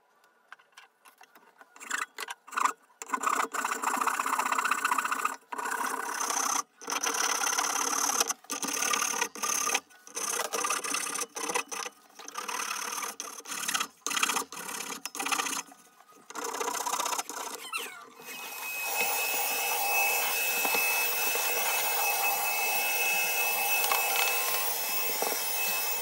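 Sandpaper rubbing by hand on a black cherry wood piece clamped in a vise: quick, irregular back-and-forth strokes with short pauses. About two-thirds of the way in, a Bissell MagicVac handheld vacuum starts and runs steadily with a thin whine.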